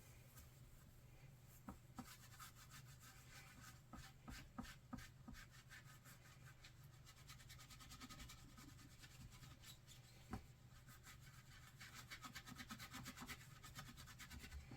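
Faint rubbing and light scratching of a baby wipe being worked over rubber stamps to clean off the ink, with a few soft knocks.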